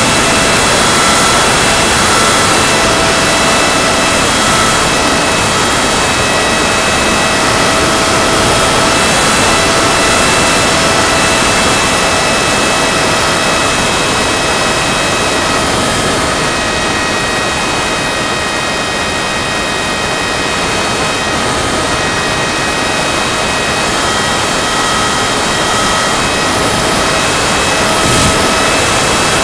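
Go Discover FPV model airplane's electric motor and propeller whining steadily in flight, heard from the onboard camera, over a heavy rush of wind on the microphone.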